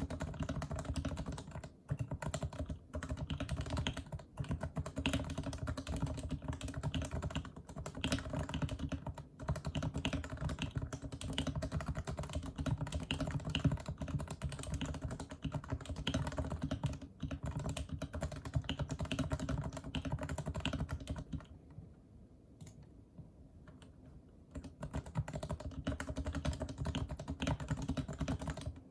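Fast, continuous typing on a Leopold FC660C keyboard with lubed, unsilenced 45g Topre electro-capacitive switches: a dense stream of deep, rounded keystrokes from the rubber domes and sliders. The typing pauses for about three seconds a little past two-thirds of the way through, then resumes.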